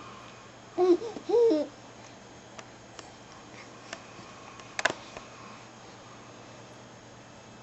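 Infant cooing: two short pitched coos about a second in, then a single sharp click near five seconds.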